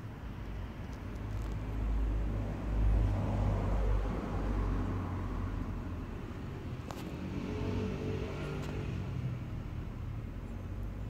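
A motor vehicle running nearby: a low rumble that swells about three seconds in, followed by a steady engine hum a few seconds later.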